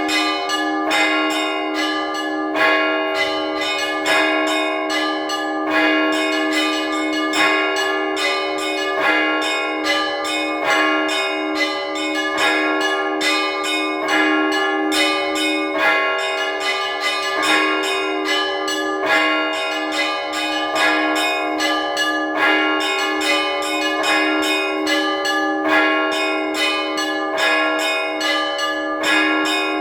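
Russian Orthodox church bells rung in a trezvon, the festive peal of all the bells. The strikes come quickly and continuously in a rhythmic pattern, with louder accented strokes every second or two over a steadily ringing low tone.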